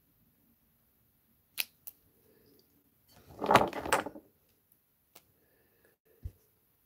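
Cosmetics being handled while picking out an eyeliner: a few small clicks and one brief rattling clatter midway, with a soft thump near the end.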